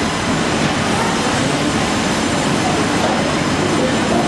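Loud, steady din of sawmill machinery running, an even mechanical rumble and hiss with no clear rhythm or single event.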